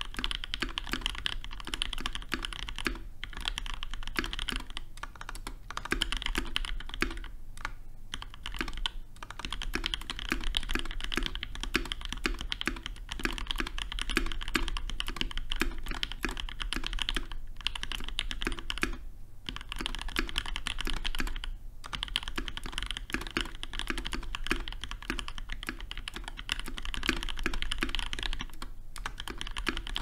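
Fast, continuous typing on a Keebwerk Mega custom mechanical keyboard with lubed, filmed Durock Creamy Purple switches, an aluminium plate and PBT keycaps: a dense run of keystroke clacks, broken by a few short pauses.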